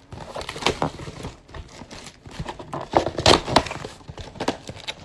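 A cardboard trading-card box being handled and opened, with irregular crinkling, rustling and scraping as its top flap is pulled up. The handling is loudest around the middle.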